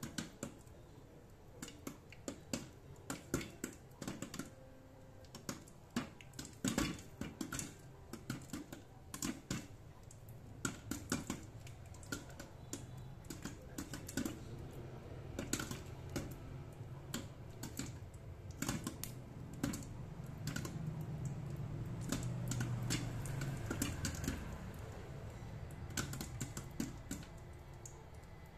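Popcorn kernels popping in a lidded electric hot pot: a dense, irregular patter of sharp pops. A low hum swells for a few seconds in the latter part.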